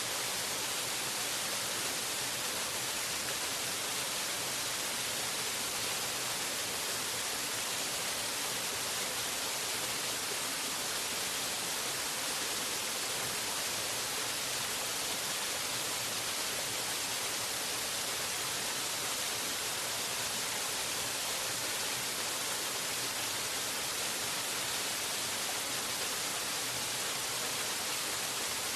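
Waterfall: a steady, unbroken rush of falling water, hissy and bright, with little low rumble.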